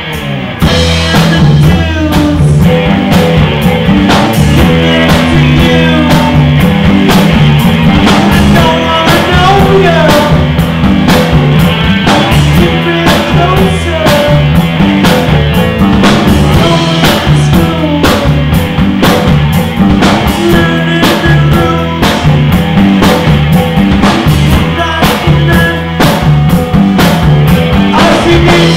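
Live rock band playing loud: electric guitars, electric bass and a drum kit keeping a steady beat.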